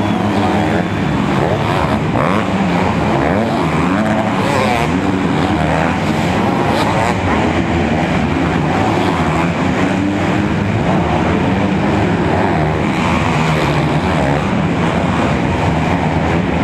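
Several motocross bikes' engines racing together, revving up and down with constant throttle changes so that many pitches rise and fall over one another.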